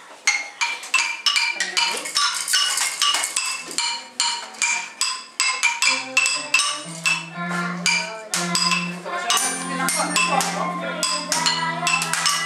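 Toy metal xylophone struck over and over with a mallet: a quick, irregular run of ringing metallic notes. About halfway through, low steady tones held for about a second each join in.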